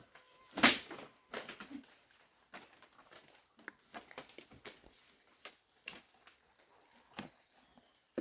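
Irregular knocks and taps, a few to a second, the loudest about half a second in.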